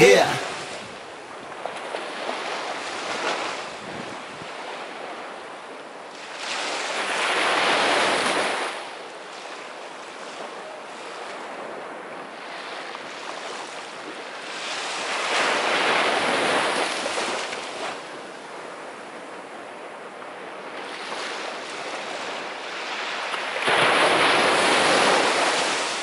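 Small sea waves breaking and washing up a sandy beach. The hiss of surf swells up three times, about eight seconds apart, with a quieter wash in between.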